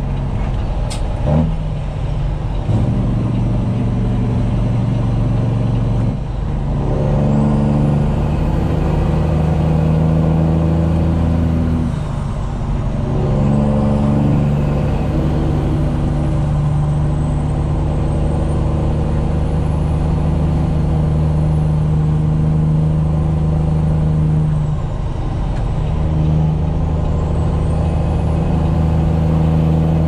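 Peterbilt 389 semi truck's diesel engine pulling under load, heard from inside the cab. The engine note drops and picks back up three times as gears are shifted. A thin, high turbo whistle rises and falls over it.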